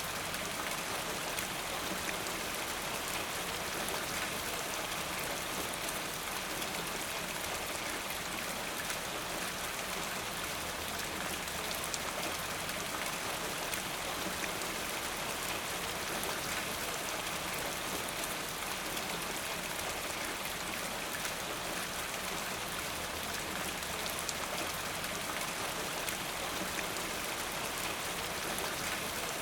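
Steady rain falling, a dense even hiss of drops with fine pattering and no letup.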